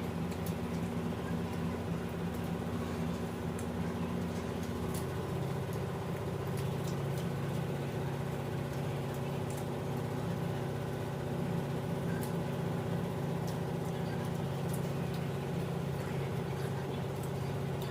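A steady low mechanical hum that holds the same pitch throughout, with faint scattered clicks over it.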